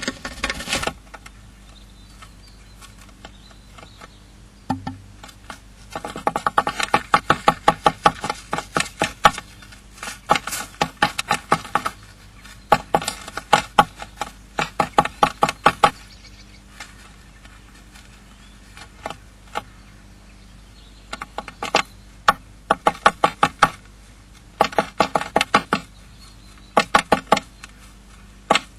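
Female blue tit hammering at the wooden floor of a nest box with her beak, stripping it. The taps come in rapid bouts of a few seconds each, many strikes a second, with pauses between bouts.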